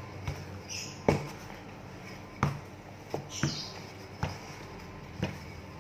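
Hands patting and pressing a rolled-out sheet of bread dough against a plastic baking mat: a handful of soft, irregular taps with a little rustle of skin on dough.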